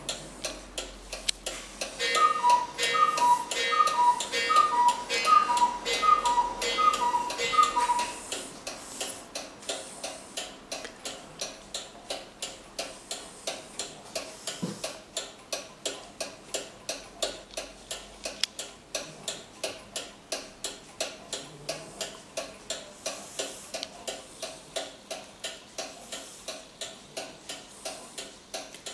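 Antique 18th-century Pierre Jaquet-Droz table clock, a 'Zappler' with a short pendulum, ticking quickly and evenly. About two seconds in it strikes on its two bells, alternating high then low like a ding-dong, about eight times over some six seconds, then goes on ticking.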